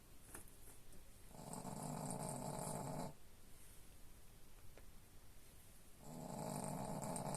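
Sleeping dog snoring: two long snores about four and a half seconds apart, with quiet breathing between them.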